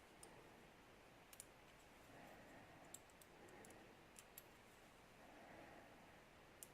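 Faint, scattered small clicks from the number wheel of a Master Lock combination padlock being turned under shackle tension. The wheel is being felt number by number for a gate.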